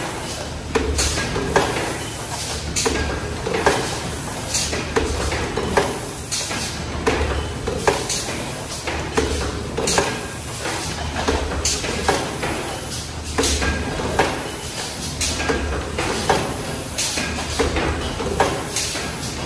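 Automatic aluminium foil container press running: a regular knock about once a second as the tooling strokes, over a low hum that swells and fades in time with the cycle.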